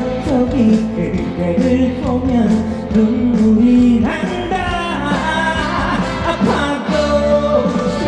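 Live trot music: a band playing with a singer's voice carrying the melody, rising into a higher phrase about four seconds in.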